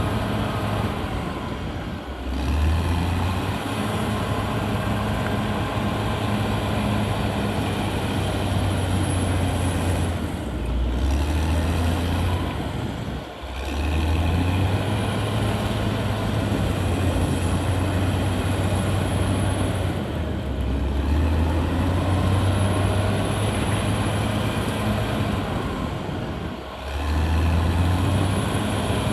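Cat D6R XL bulldozer's diesel engine running steadily, its note dipping briefly about four times (about 2 s in, around 11–13 s, near 20 s and near 27 s) and then picking back up.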